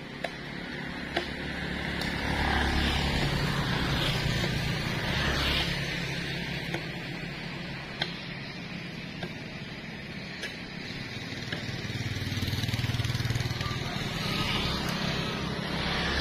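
Road traffic passing on a busy road: cars and motorcycles going by in a low rumble that swells and fades, once in the first few seconds and again about three-quarters of the way through.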